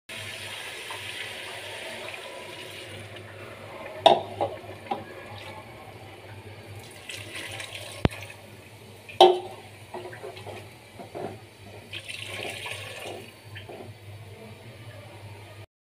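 Water poured from a jug into a pressure-cooker pot of cooking chicken, splashing onto the meat. A metal spatula clatters against the pot, with two sharp knocks about 4 and 9 seconds in, over a low steady hum.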